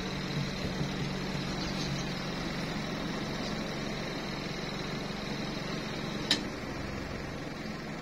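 Spin-dryer tub of a Bruhm twin-tub washing machine running smoothly: a steady hum with a faint high whine, the sign that the clothes in it are evenly arranged and balanced. A single sharp click about six seconds in.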